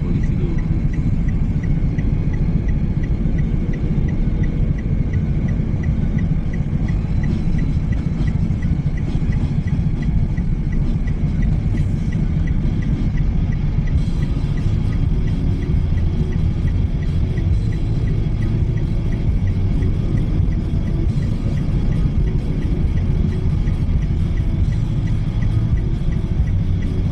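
Steady low rumble of a car's engine and tyres heard from inside the cabin in traffic, with a faint regular ticking through the first half and music playing quietly.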